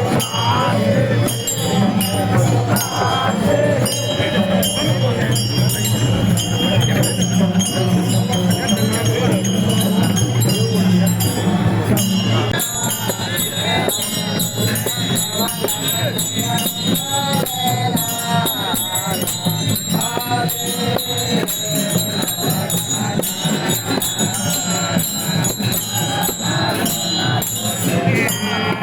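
Traditional Newari festival procession music: small metal percussion jingling in a fast, even rhythm, with voices mixed in. A low steady drone drops out about twelve seconds in.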